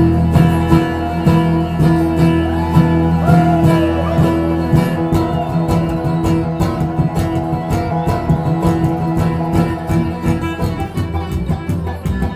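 A bluegrass band holds one sustained chord for about five seconds, then breaks into a fast picked instrumental passage on guitar and banjo.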